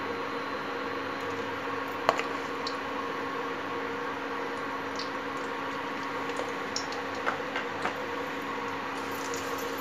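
Butter melting and lightly sizzling in hot oil in a nonstick pan, over a steady electric hum. A sharp click about two seconds in and a few softer clicks later on come from the spoon against the pan.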